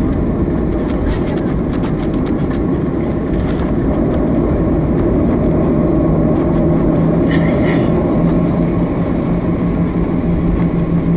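Cabin noise of a Boeing 737-700 taxiing: the steady rumble of its CFM56-7B engines and the aircraft rolling, heard from a window seat. A steady low hum joins about halfway through.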